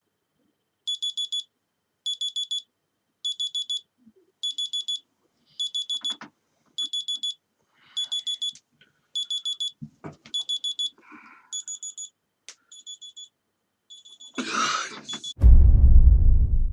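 Samsung smartphone alarm beeping in quick sets of four, one set about every 1.2 seconds, with faint bedding rustles between; the beeps grow weaker after about eleven seconds. In the last two seconds a loud noisy burst cuts in, then a very loud deep rumble.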